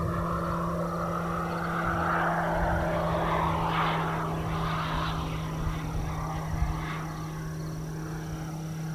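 Electric-powered RC P-47 model flying past, its Rimfire electric motor and 24x12 propeller making a whooshing drone that swells to a peak about four seconds in and then fades away. A steady low hum runs underneath.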